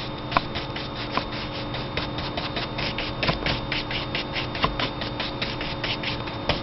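A paintbrush scrubbing back and forth on paper in a quick, even rhythm of about seven strokes a second, the bristles scratching over the surface; the strokes stop near the end.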